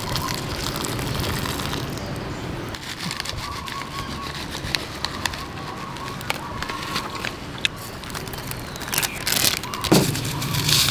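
Kitchen handling noise while a bowl of ramen is assembled: a steady hiss dotted with many small clicks of utensils and containers, with a few louder knocks near the end.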